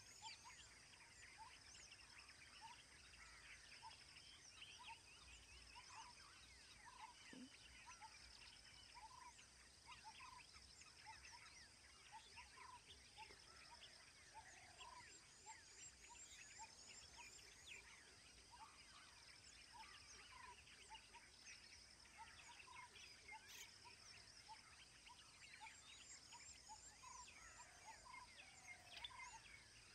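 Faint forest ambience: a bird repeating a short note about once a second, other birds chirping, and insects making a steady high pulsing trill.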